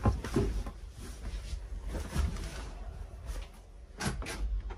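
Rustling and light knocks, then two sharp clicks close together near the end, from the handle and latch of a hotel room door.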